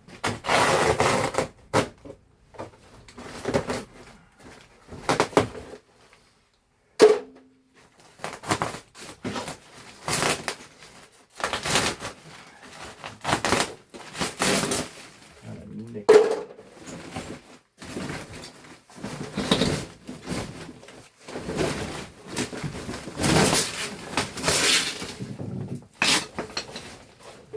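Fiberglass insulation being ripped by hand off an old HVAC return duct: repeated irregular tearing and rustling bursts, with a couple of sharp knocks.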